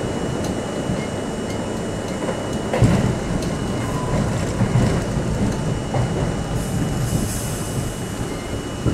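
New York City subway C train running into a station, heard from the front of the train: a steady rumble of wheels on rail with scattered clicks over rail joints. A heavy thump comes about three seconds in, and a short hiss about seven seconds in.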